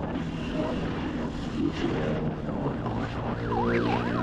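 Motorcycle engine running steadily with wind and road noise. About halfway in, the police siren fitted to the motorcycle starts, sweeping quickly up and down over and over in a fast yelp.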